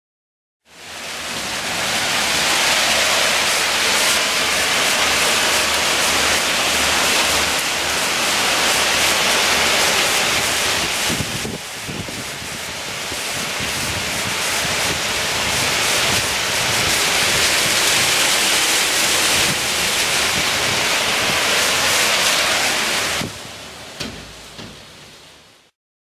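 Heavy rain and hail pelting down, a dense steady patter. It fades in at the start and drops off in the last few seconds.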